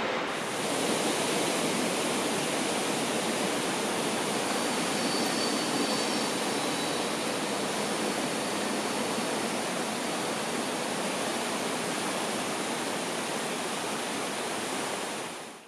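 Fast whitewater mountain river, the Landwasser, rushing steadily as an even hiss and rush of water.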